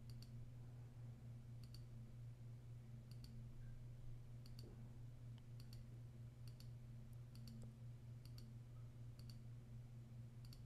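Computer mouse clicking about once a second, each click a quick press-and-release double tick, over a low steady hum.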